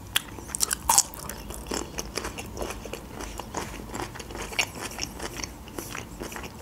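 Biting and chewing a pickled gherkin: wet crunching and clicking mouth sounds, loudest about a second in.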